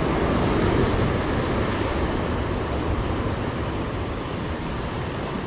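Sea surf breaking and washing over shoreline rocks: a steady rushing hiss that eases slightly toward the end, with some wind on the microphone.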